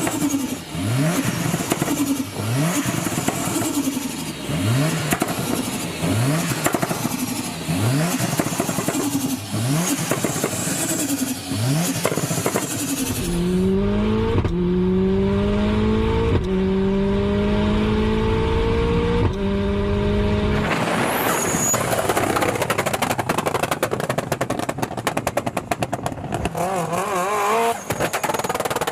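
Tuned Subaru WRX STI's turbocharged flat-four engine blipped in short rising revs about once a second, then pulling hard through the gears, its pitch climbing in each gear and dropping at three upshifts. It ends in a rough stretch of dense crackling.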